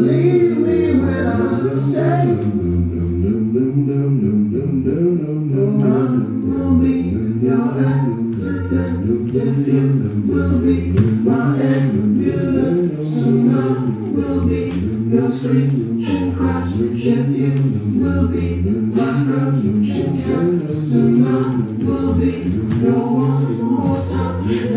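Vocal music: layered a cappella singing, with low voices rising and falling continuously.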